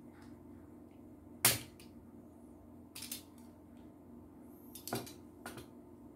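Sharp snips of pliers-type wire cutters cutting and stripping electrical wire: one loud snip about a second and a half in, then smaller clicks around three and five seconds. A steady low hum runs underneath.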